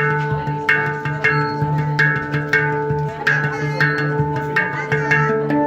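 Background music: a tuneful track of plucked or struck notes over a steady low tone, with a steady beat of about two strikes a second.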